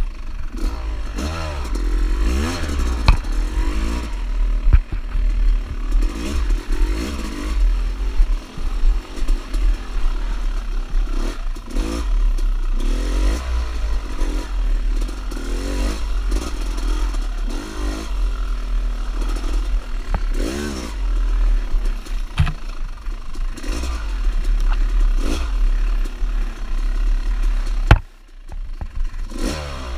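Dirt bike engine revving up and down over and over as it is ridden along a rough trail, with clattering knocks from the bumps and a heavy low rumble under it. Near the end there is a sharp knock and the engine drops off for about a second before revving up again.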